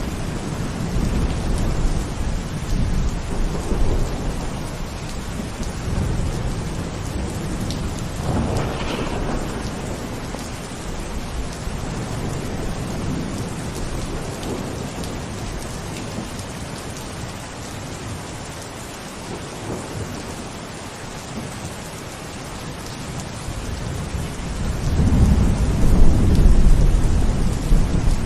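Steady rain falling with low rolling thunder. The thunder swells to its loudest roll near the end.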